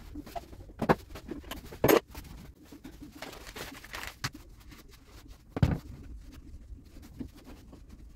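Cleaning noises: a flat mop swept over a tiled floor, then a cloth wiping a wire-mesh trolley, with a few sharp knocks and bumps, the loudest about two seconds in.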